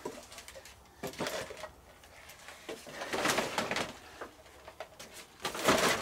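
Plastic crinkling and rustling in three bursts, the longest about three seconds in and the loudest near the end, as empty plastic bottles tied to fishing line are handled and pushed into a woven plastic sack.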